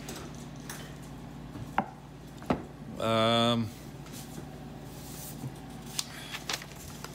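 A cleaver-style kitchen knife knocking against frozen beef ribs and a wooden cutting board: a few sharp knocks, the clearest two about two seconds in. About three seconds in comes a brief voiced hum at a steady pitch, the loudest sound, over a steady low background hum.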